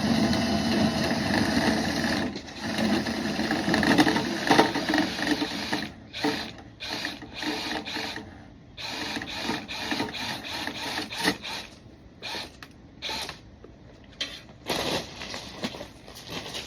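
A motor-driven cleaning tool runs steadily, then stops about six seconds in. Irregular clattering and knocking follow.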